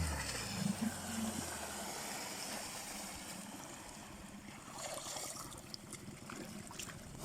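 A motor's steady hum fades out over the first two seconds, leaving faint running-water noise.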